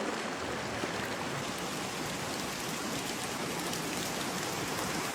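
Steady rain falling: an even hiss with scattered drops ticking close by.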